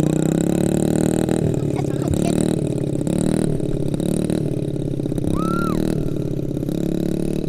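Small four-stroke single-cylinder engine of a Honda CRF50 dirt bike running, its pitch rising and falling in steps as the throttle is opened and eased.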